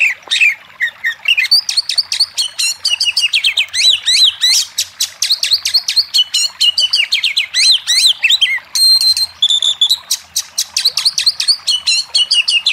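Oriental magpie-robin (kacer) singing a loud, rapid, varied song: a continuous run of quick sweeping chirps and trills, with a few short held whistles a little past the middle. This is the kind of energetic song used as lure audio to provoke a quiet kacer into answering.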